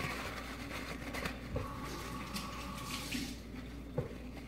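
Kitchen tap running into a sink with a steady hiss that stops about three seconds in, with a couple of light knocks.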